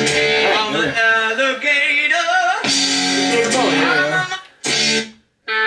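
Small Bluetooth speaker playing a song with guitar and singing. Near the end it cuts out, a brief snippet plays, then a different guitar track starts, as when the track is skipped on the speaker's buttons.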